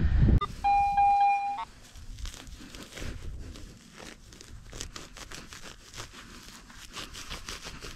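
Gloved hands and a hand digging tool working a plug of soil and dry grass back into a dug hole in a lawn: a crackly rustling of dirt and grass. About a second in, a short steady electronic beep lasts about a second.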